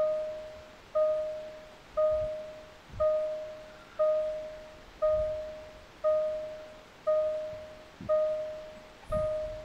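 Jaguar XJ dashboard warning chime: a single bong repeating about once a second, each one fading away before the next. It is the car's warning that the driver's door is open with the ignition on.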